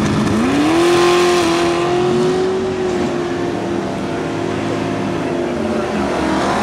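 Pickup truck engine revved up hard about half a second in and held at high revs for a burnout, the rear tyre spinning in the water box. The revs drop back a few seconds in and climb again near the end.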